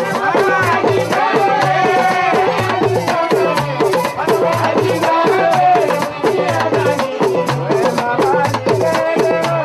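Background music that starts right at the beginning: percussion keeping a fast steady beat over a melody and a repeating bass line.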